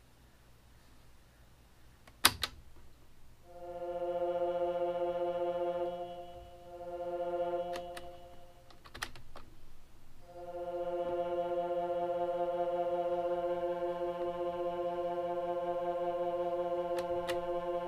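A sharp click from a cassette recorder's transport key, then a small synthesizer holding one steady, buzzy note. The note breaks off briefly around six seconds and again near nine seconds amid a few more clicks, then resumes and holds with a slight wavering.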